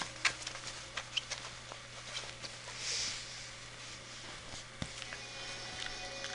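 A young beagle puppy mouthing and tugging a plush toy on a leather sofa: scattered soft rustles and small clicks, with a short breathy snuffle about three seconds in. Faint background music comes in near the end.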